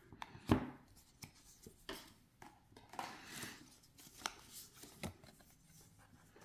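Tarot cards being handled: a string of light clicks and taps of card stock, the sharpest about half a second in, with soft sliding and rustling between them.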